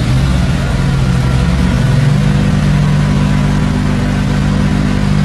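Toyota Land Cruiser FJ40 engine running at a steady idle just after starting.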